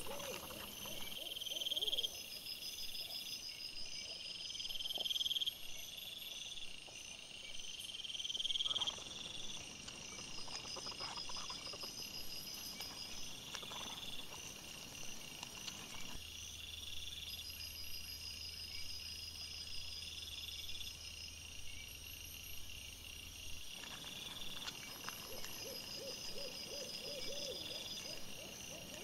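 Wild boar grunting in quick series at the start and again near the end, over a steady high insect chorus with repeating pulses.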